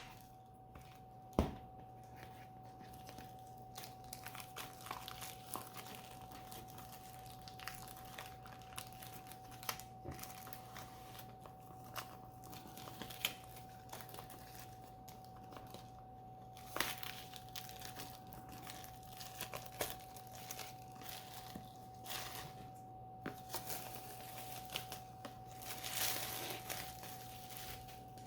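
Packaging and disc cases being handled: crinkling and rustling with scattered small clicks and knocks, over a faint steady electrical hum.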